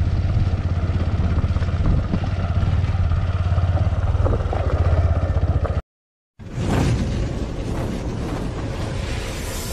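Bajaj Pulsar NS125's single-cylinder engine running steadily. The sound cuts out abruptly for half a second about six seconds in, then returns rougher and noisier.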